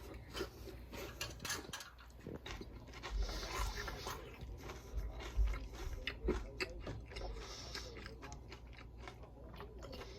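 A person chewing and biting crispy fried chicken (karaage), with irregular crunching and crackling.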